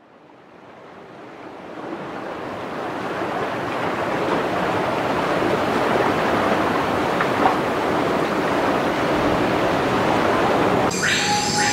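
Steady rushing noise like running water or surf, fading in from silence over the first few seconds and then holding even.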